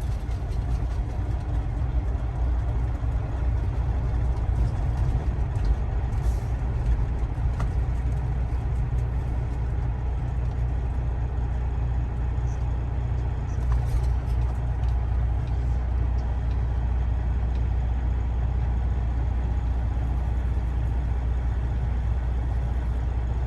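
Semi-truck engine and road noise heard inside the cab: a steady low drone while cruising with a heavy load of about 43,000 pounds, with a few light clicks and rattles.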